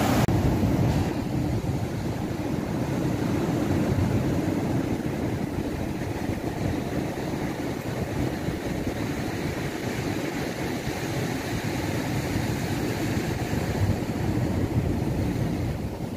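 Ocean surf breaking and washing over a rock breakwater: a steady low rumble with no separate crashes standing out, and wind on the microphone.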